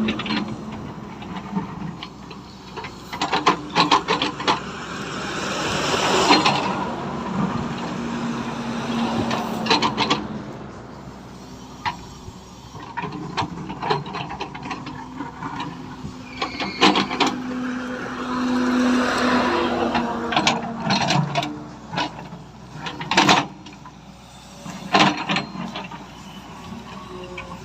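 Tata Hitachi excavator working: the diesel engine runs steadily and swells louder twice, around six and nineteen seconds in, with sharp metallic knocks and clanks scattered throughout.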